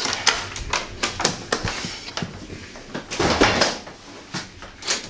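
Handling noise from a handheld camera while walking: irregular clicks and knocks with clothing and backpack rustling, and a louder rustle about three and a half seconds in.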